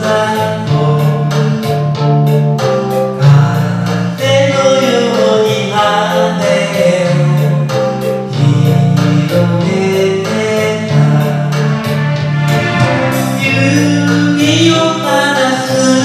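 Karaoke: a pop ballad backing track with a steady drum beat, and a man singing along over it.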